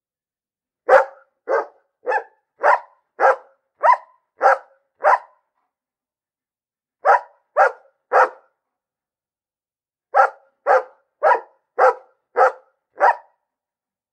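A dog barking in three runs of quick barks, about two a second: eight barks, then three, then six, with clean silence between the runs.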